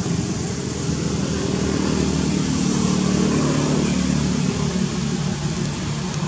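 Motor vehicle engine running steadily with a low hum that swells a little about halfway through.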